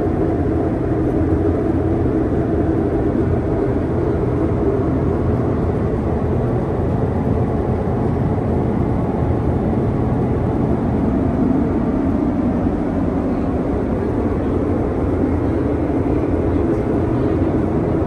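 Steady in-flight cabin noise of a Boeing 737-200 in cruise, heard inside the lavatory: an even, low rumble and rush of engines and airflow that does not change.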